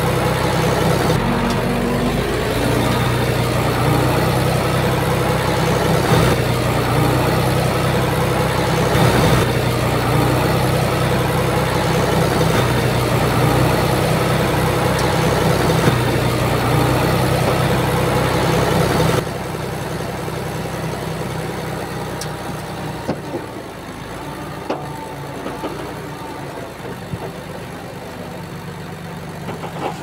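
Komatsu crawler bulldozer's diesel engine running steadily. About two-thirds of the way through the sound drops suddenly, and a quieter engine runs on with a few faint clicks.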